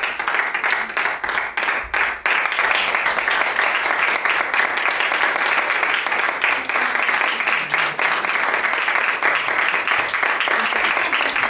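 Audience applauding, many hands clapping. A few separate claps stand out in the first two seconds, then the clapping fills into an even wash.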